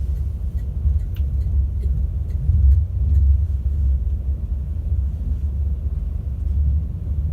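Class 390 Pendolino electric train heard from the passenger cabin above its traction motors: a steady low rumble from the running gear and motors, with a few faint ticks in the first couple of seconds.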